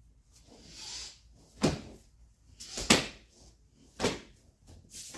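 Sharp slaps and thuds of a kenpo kata being performed barefoot on a mat: four strikes about a second apart, with a soft swish before the first.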